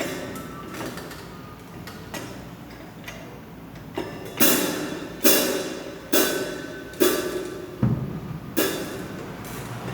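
Drum kit struck one hit at a time by an untrained player: a few quieter seconds, then about seven single strikes roughly a second apart, each ringing briefly. One strike near the end has a deep low thump.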